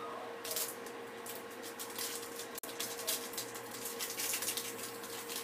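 Aluminium foil crinkling and rustling under the fingers as a ball of pearl-millet dough is pressed and patted flat on it, a fast scratchy crackle starting about half a second in, with a steady faint hum underneath.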